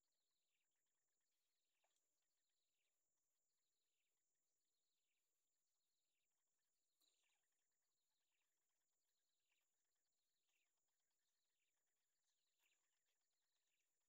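Very faint, short downward chirps repeating about one to two times a second, the begging calls of nestling birds, over a steady faint high whine.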